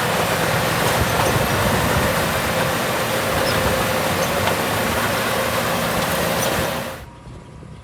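Small crawler bulldozer's diesel engine running steadily under work, with dense mechanical noise. About seven seconds in, it cuts abruptly to a much quieter engine sound.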